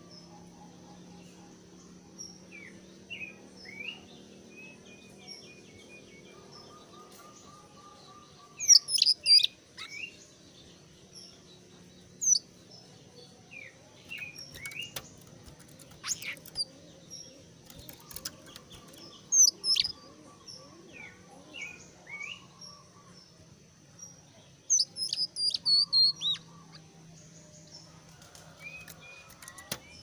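Caged jongkangan coklat (a small brown Indonesian songbird) calling insistently. It gives loud, sharp bursts of high rising and falling notes several times, with softer chirps and short trills in between, over a faint steady high-pitched hum.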